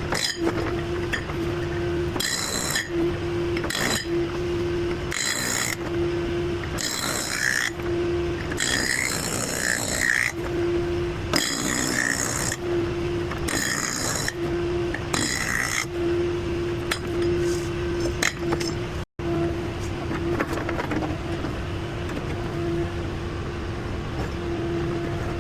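Heavy diesel digging equipment running, a steady low engine rumble with a hum that comes and goes, and repeated short bursts of harsher, hissing or scraping noise through the first half.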